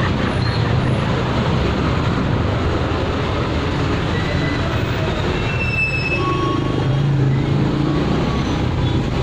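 Heavy road traffic at a standstill, heard from a motorcycle squeezing between trucks: a steady rumble of idling truck and motorcycle engines, with a few short high squeaks around the middle.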